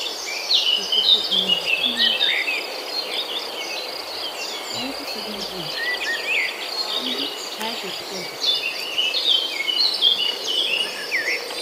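Birds chirping in quick short calls over a steady high insect trill. The chirps come in clusters, busiest in the first two seconds and again from about eight and a half to eleven seconds in.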